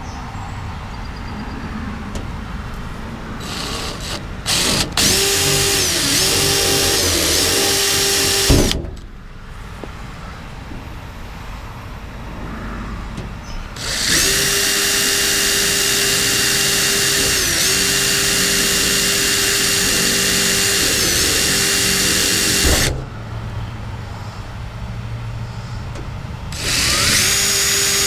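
Electric drill boring holes in three spells of steady whine, stopping in between. Its pitch sags briefly a couple of times as the bit loads up.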